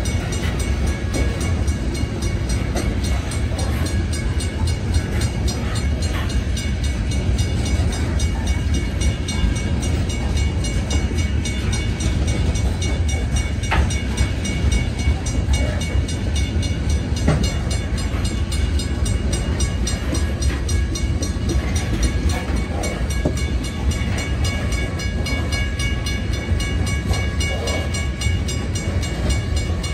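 Loaded coal hopper cars rolling through a grade crossing: a steady heavy rumble of steel wheels on rail, with two sharp wheel knocks about 14 and 17 seconds in. Above it the crossing signal's bell rings steadily.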